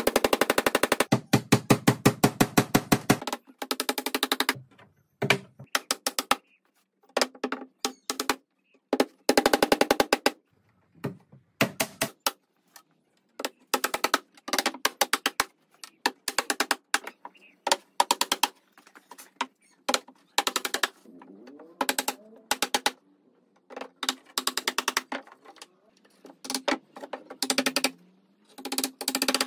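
Claw hammer driving nails through pine fence palings into a plywood roof panel: rapid blows in bursts of several strikes, each ringing briefly, with short pauses between bursts.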